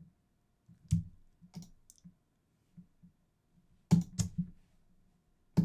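Computer mouse and keyboard clicks: scattered single clicks, then a quick cluster of three about four seconds in and one more near the end.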